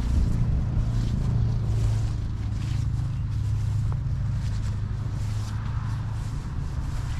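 Footsteps of someone walking, a faint step about every half second to second, over a steady low hum.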